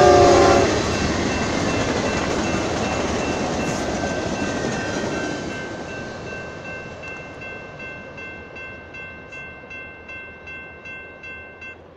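Amtrak Talgo train passing behind a GE P42 locomotive: the end of the locomotive's horn dropping in pitch, then the rumble of the train going by, fading as it moves away. A railroad crossing bell rings repeatedly, about two to three strokes a second, and is heard more plainly as the train noise dies away. It stops just before the end.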